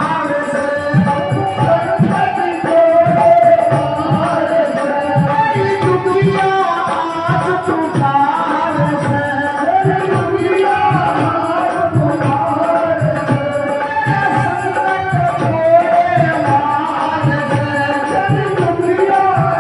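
A woman singing a devotional bhajan into a microphone, backed by hand drums keeping a steady beat.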